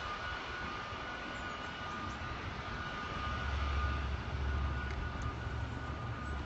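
Outdoor street background noise: a steady low rumble that grows stronger about halfway through, with a faint steady high tone over it.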